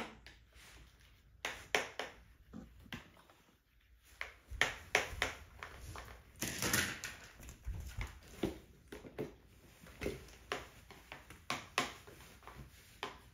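Irregular light taps and clicks of plastic: toddlers' straws and plastic cups knocking and poking on plastic booster-seat trays.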